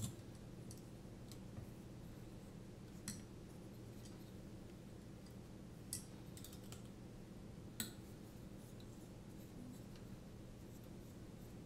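A few faint, sharp clicks and taps, about four in all, as small screws and carbon-fibre frame plates are handled and fitted together, over a low steady hum.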